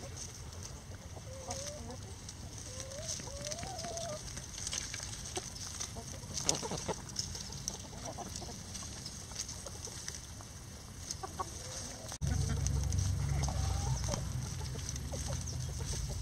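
Free-range chickens clucking softly while they scratch and forage, with rustling and scratching in dry leaves and twigs. About twelve seconds in, a steady low rumble starts suddenly and becomes the loudest sound.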